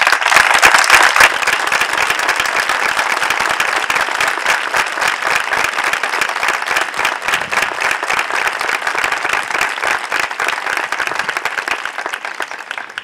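Crowd applauding: many hands clapping together, starting abruptly after a few scattered claps, loudest in the first couple of seconds, then slowly tapering off and dying away near the end.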